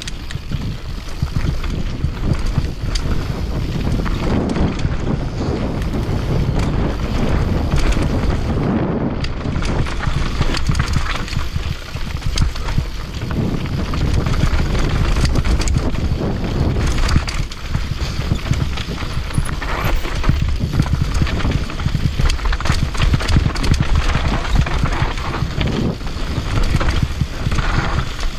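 Commencal enduro mountain bike descending a rough trail at speed: tyres clattering over the ground, with the chain and frame rattling in a dense stream of small knocks over a steady low rumble of wind on the microphone.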